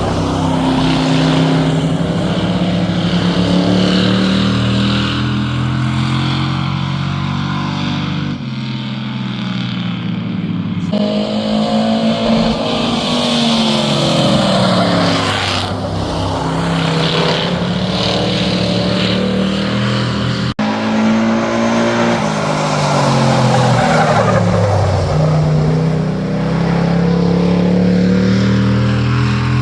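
Edited-in race car sound effects: several engines that sweep up and down in pitch as they rev and pass by, spliced together with abrupt cuts.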